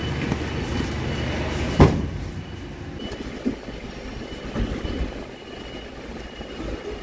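Cardboard boxes being loaded into the cargo bed of a Mitsubishi L300 van: one sharp thump about two seconds in as a box is set down, then a few lighter knocks and scuffs over a steady low rumble.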